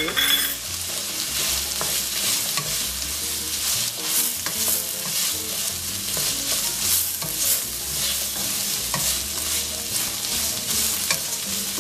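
Black beans and corn sizzling in an oiled stainless steel skillet while a wooden slotted spatula stirs them, scraping across the pan in irregular strokes.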